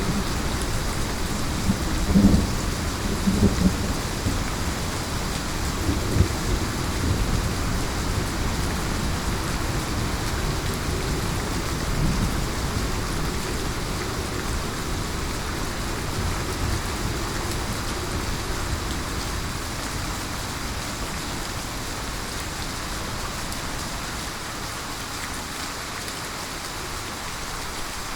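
Steady heavy rain hissing, with low rolls of thunder rumbling in the first half that die away, leaving the rain alone and slowly quieter near the end.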